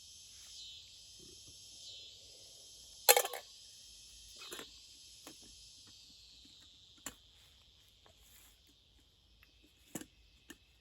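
Steady, high-pitched insect chorus chirring in the woods, broken by a few sharp clicks and knocks, the loudest about three seconds in and a smaller one near the end.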